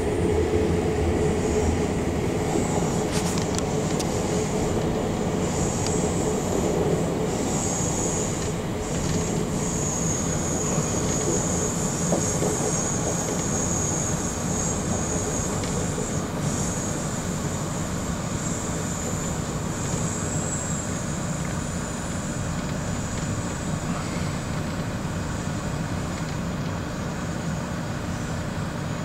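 Running noise heard inside a moving Amtrak passenger car: a steady rumble and clatter of the wheels on the rails. A high squeal from the wheels comes and goes through the middle.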